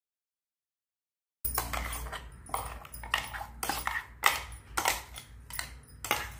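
Total silence for the first second and a half, then a metal spoon scraping and clinking against the inside of a stainless-steel mixer-grinder jar, scooping thick ground mint chutney out into a glass bowl, in quick, irregular scrapes and clicks.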